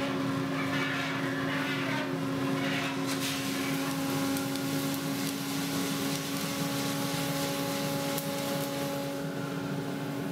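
Coffee roaster running with a steady hum from its motor and fan while freshly roasted beans pour out of the drum into the steel cooling tray, a dense rattle of beans on metal that is stirred by the tray's rotating arms.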